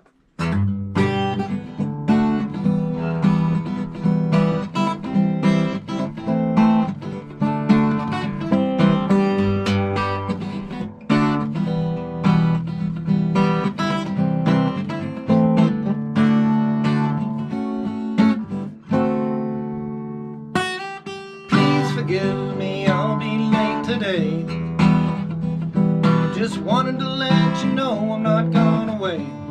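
Acoustic guitar played solo, strummed chords and picked notes in a steady rhythm, with a short break about two-thirds of the way through before the playing picks up again.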